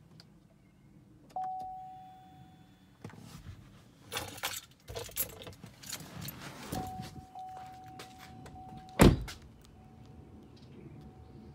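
Chevy Tahoe's warning chime: a single decaying ding just over a second in, then a steady tone for about two seconds. The tone is cut off about nine seconds in by the driver's door slamming shut, the loudest sound. Rustling and key jangles come in between, and the chime is faint after the door closes. The truck keeps chiming because it thinks the ignition is on even though the engine never started.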